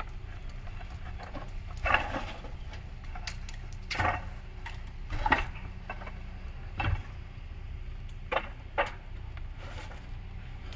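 Concrete barrel roof tiles knocking together as they are set down in stacks on the roof, about six sharp clacks spread unevenly, over a steady low hum.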